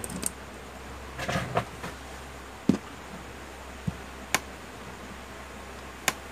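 Scattered short knocks and taps as a Redmi 8A smartphone is handled on a work mat and its screen tapped, about six in all with the loudest near the middle, over a steady low hum.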